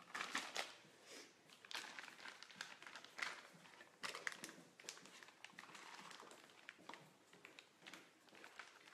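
Faint crinkling and rustling of a plastic disposable piping bag being handled and refilled with buttercream, with scattered light clicks.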